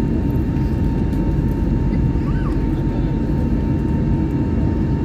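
Steady low cabin drone of an Airbus A321neo with Pratt & Whitney PW1100G geared turbofans, heard from a forward seat, with a faint steady whine over it.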